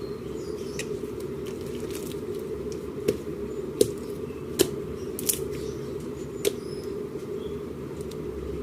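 Slime being squeezed and pressed, giving about five sharp pops and clicks from about three seconds in, over a steady low hum.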